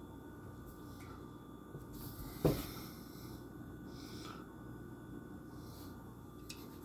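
Faint handling and rustling of a small die-cast toy car and its packaging, with one sharp knock about two and a half seconds in.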